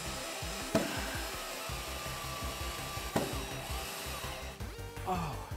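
Ridgid cordless drill running as it works into the underside of a plywood deck, stopping about four and a half seconds in. Background music plays under it.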